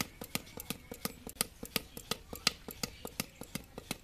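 Wooden paddle beating the wall of an unfired clay pot to shape and thin it: a quick, slightly uneven run of sharp pats, about four or five a second.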